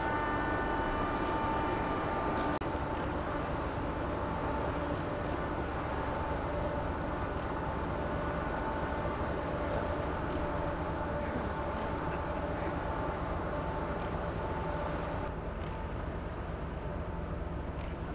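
Steady engine hum of a small motorboat under way, several steady tones over a wash of engine and water noise. The tones shift abruptly about two and a half seconds in and again near the end.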